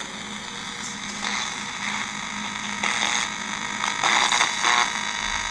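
Spirit box sweeping through radio stations: a steady hiss of choppy static, with louder bursts of noise about a second in, around three seconds and around four seconds.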